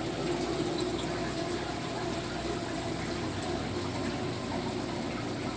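Steady rush and splash of circulating water in a reef aquarium, its filtration pump and overflow running continuously, with a faint steady hum.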